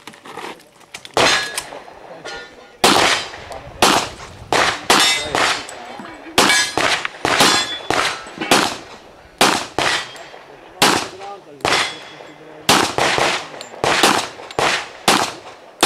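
Handgun fired in quick pairs and short strings while a shooter runs a practical shooting stage: about twenty sharp shots, each with a short echo, starting about a second in.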